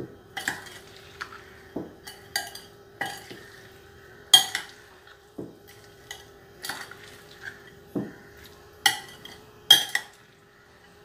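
Metal spoon stirring chopped mango pickle in a glass bowl, clinking irregularly against the glass, with two louder clinks about four and a half and nine and a half seconds in.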